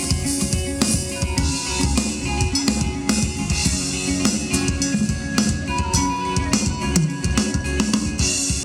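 Live rock band playing through a PA: drum kit keeping a steady beat with bass drum and snare under electric guitar.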